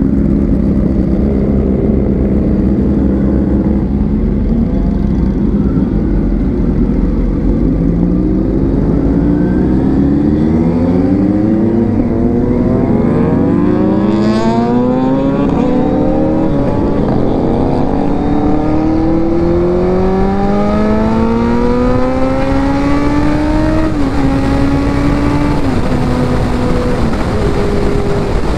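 Kawasaki Z900's inline-four engine, heard from the rider's helmet. It starts at a steady low note, then accelerates up through the gears, rising in pitch and dropping back at each upshift several times, with a long pull late on before settling at high-speed cruise. Wind rush on the microphone runs underneath.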